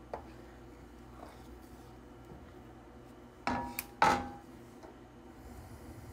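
A wooden spoon knocks twice against the side of an enameled pot of thick sauce a little past halfway, the second knock sharper with a brief ring. Under it is a faint steady background.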